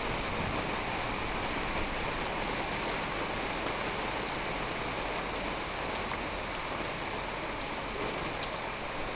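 Heavy thunderstorm rain falling steadily, splashing on paved ground.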